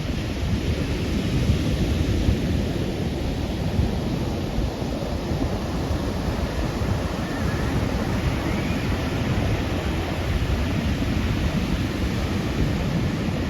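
Ocean surf washing ashore, with wind buffeting the microphone: a steady rushing noise with a heavy low rumble.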